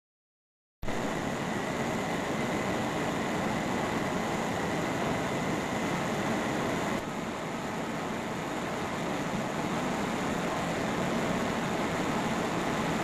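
Steam locomotive running on the rollers of a test bed, together with the testing machinery: a steady mechanical running noise that starts abruptly about a second in, with a faint high whine that fades about halfway through.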